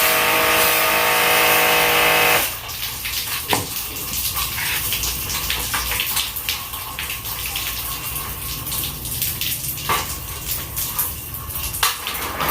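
A motor-driven water sprayer runs with a steady multi-tone whine over the hiss of water and cuts off sharply about two and a half seconds in. After that, water trickles and splashes with scattered clicks and knocks. These are the sounds of a split-type air conditioner being washed.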